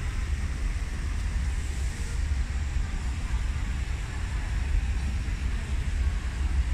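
Steady low rumble with a faint hiss over it, with no distinct events: the background noise of a large indoor atrium.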